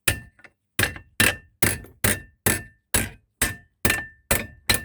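Hammer blows on the bent metal door hinge of an Indesit Innex washing machine clamped in a vice, straightening it: eleven steady strikes about two a second, each with a short metallic ring.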